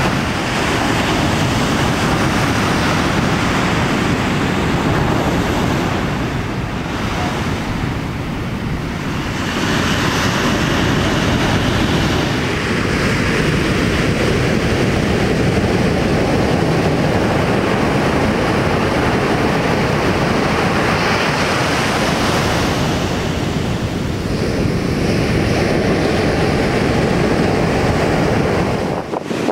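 Ocean surf breaking and washing in, a continuous rush of waves and whitewater with wind buffeting the microphone. It swells and eases, softening briefly twice, about a quarter of the way in and again near the end.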